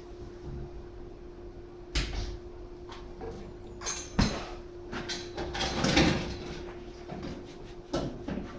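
A string of sharp knocks and clattering from handling things around a coke forge, the loudest cluster about six seconds in, over a steady low hum.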